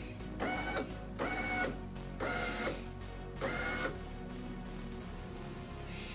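Toyota driver's door power window motor whining in four short bursts, about half a second each, as the switch is tapped to raise the glass slowly. This is the first test of the window regulator after the glass was re-glued and bolted back onto the bottom rail.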